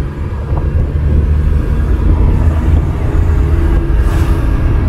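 Suzuki Multicab's 660cc engine and road noise heard from inside the cabin while driving at a steady pace: a steady low rumble with a faint engine hum, and a brief hiss about four seconds in.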